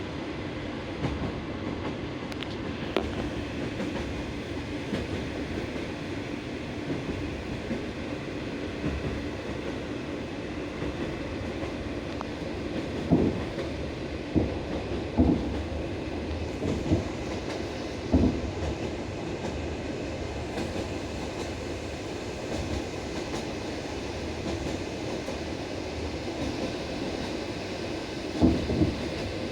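Train carriage wheels rolling on jointed track, a steady rumble with sharp clacks as the wheels cross the rail joints: several single knocks in the middle and a quick cluster near the end.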